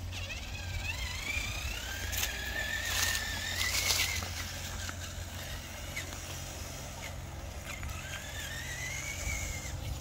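Small electric drive motor and gearbox of a radio-controlled dump truck whining as it drives, the pitch rising and falling with the throttle; it stops for a few seconds in the middle and whines again near the end. A few short clatters come about two to four seconds in, over a steady low rumble.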